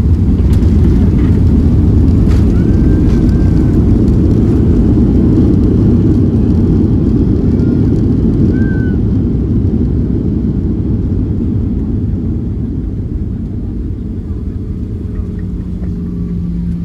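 Cabin noise of a Boeing 737-800 on landing: the heavy low rumble of its CFM56 engines and the airframe, loudest at first and gradually easing as the jet slows on the runway. A steady hum comes in near the end.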